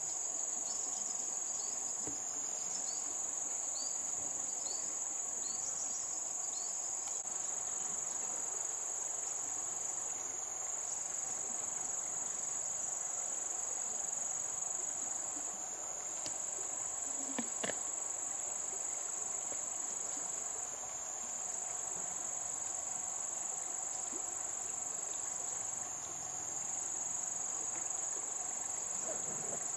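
Insects chirring in one continuous high-pitched trill. A run of short, higher chirps comes in the first several seconds, and there is a single sharp tap about two-thirds of the way through.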